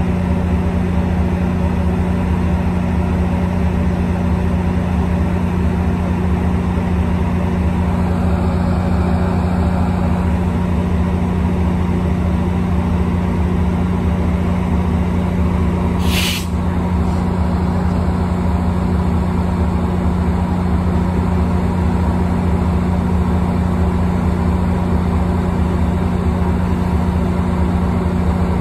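MP36 diesel passenger locomotive idling with a steady drone while the train stands at the platform. A single short, sharp hiss of released air comes about halfway through.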